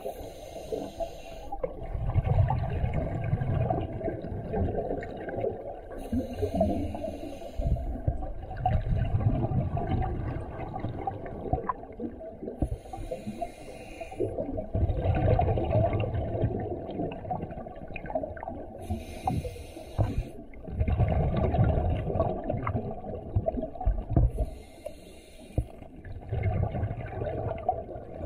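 Diver breathing through a scuba regulator underwater: a short hiss as each breath is drawn, then a longer stretch of bubbling as the exhaled air escapes, about one breath every six seconds.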